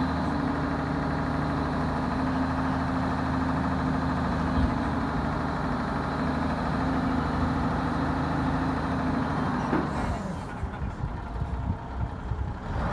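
Diesel engine of a Kato SR-250 rough terrain crane idling steadily. About ten seconds in, the sound turns muffled and uneven.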